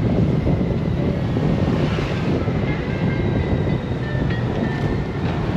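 Wind rush and steady running noise of a Honda Gold Wing motorcycle cruising on the road. An oncoming car swishes past about two seconds in.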